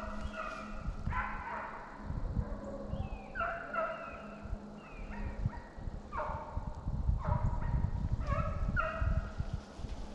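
A pack of hounds baying while running deer: repeated drawn-out bawls that drop in pitch at the end, with several voices overlapping.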